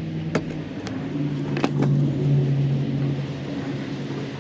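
A motor vehicle engine running steadily in the background, its low hum dropping slightly in pitch about a second in. A few sharp clicks come over it in the first two seconds as a screwdriver works at plastic connector clips on a fuel pump.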